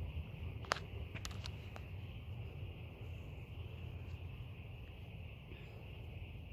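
Faint night-time outdoor ambience: a steady low rumble under a faint, even high-pitched hum, with a few sharp clicks a little under a second in and again around a second and a half.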